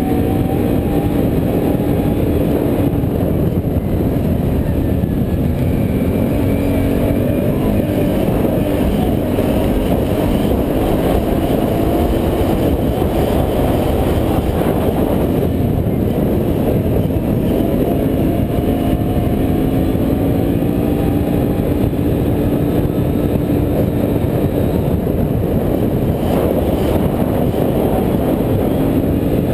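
Can-Am Renegade ATV's V-twin engine running steadily as it rides along, its pitch drifting gently up and down with small changes in throttle and speed, over a dense low rumble.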